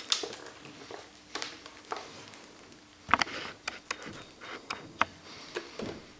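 Packing handling noise as a Sony VPL-EX1 projector is lifted out of its bubble wrap and cardboard box: scattered light clicks and knocks with rustling of the plastic wrap, a sharper cluster of clicks about three seconds in.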